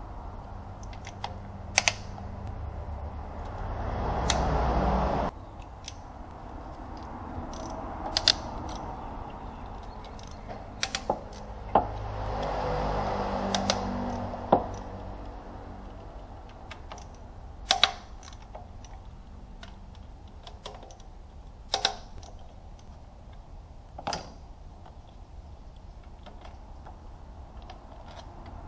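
Hand tools and engine parts clicking and clinking irregularly as they are handled on top of a car engine, with two louder stretches of noise, the first cutting off suddenly about five seconds in.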